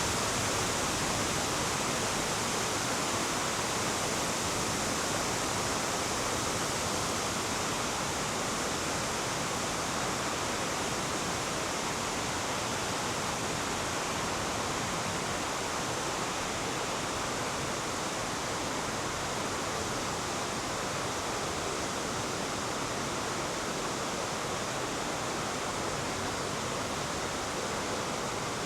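Steady rush of the Nippara River flowing through its gorge, an even unbroken wash of water noise.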